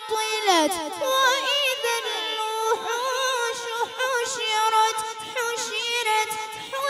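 A boy's high voice chanting Quran recitation (tilawat) in the Iranian style. He holds long notes with wavering ornaments, broken by quick falling melodic runs.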